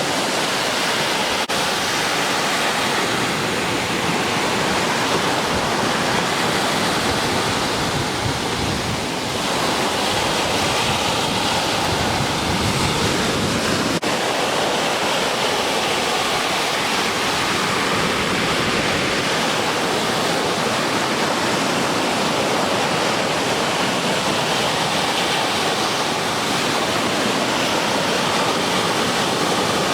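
Ocean surf breaking and washing in: a steady, unbroken rush of waves.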